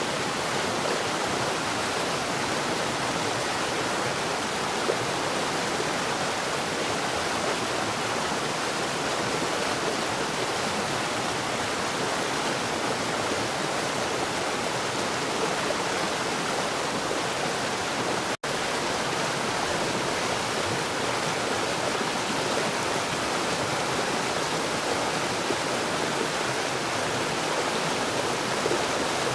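Steady, heavy rain falling, an even hiss with no thunder. It cuts out for an instant about two-thirds of the way through.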